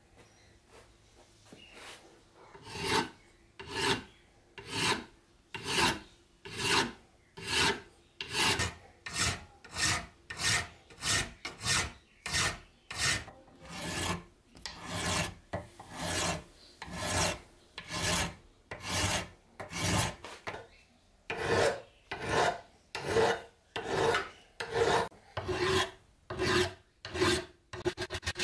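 Steel hand file rasping across a cast aluminum file-holder casting, one push stroke about every second after a quiet start, with a brief pause about two-thirds of the way through. The strokes are smoothing out scratches and minor damage in the aluminum.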